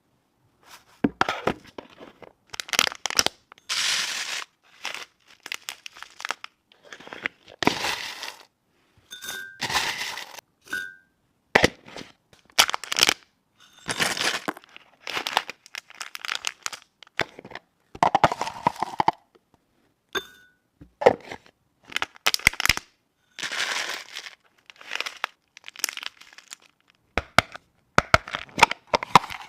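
Plastic packaging and label sheets being handled: repeated crinkling and tearing in short bursts separated by brief pauses, with occasional sharp clicks.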